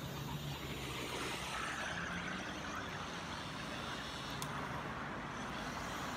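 Small electric motor and gearing of a 1/16-scale RC Bruder model truck running steadily, a continuous mechanical whir.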